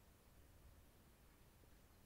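Near silence: faint, steady background hiss with a low rumble.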